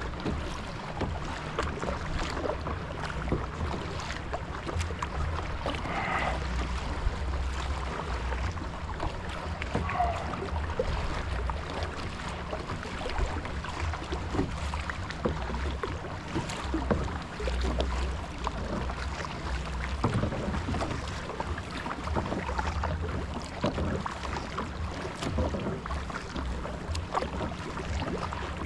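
Kayak being paddled on open water: scattered splashes and drips from the paddle over a steady low rumble.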